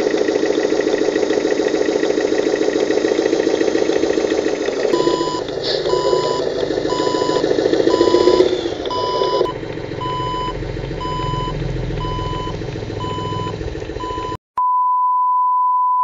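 Miniature RC truck's engine sound running steadily. About five seconds in, electronic reversing beeps start over it, about one a second. Near the end the sound cuts off sharply and a steady high beep tone follows.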